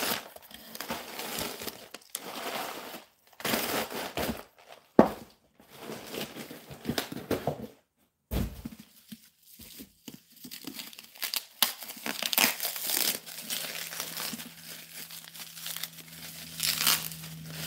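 Paper packing material and plastic bubble wrap crumpling and crinkling in irregular rustling bursts as a box of books is unpacked, with one sharp snap about five seconds in.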